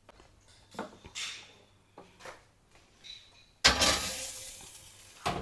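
A baking dish being handled and put into a wall oven: a few light knocks and clinks of the dish, then about three and a half seconds in a sudden louder rushing noise that fades over a second and a half, ending with a knock as the dish goes onto the oven rack.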